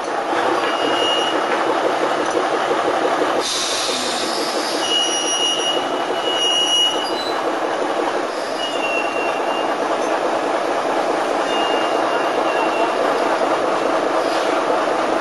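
Crane's engine running steadily, heard from inside the crane cab, with several short high-pitched squeals and a brief burst of hiss about three and a half seconds in.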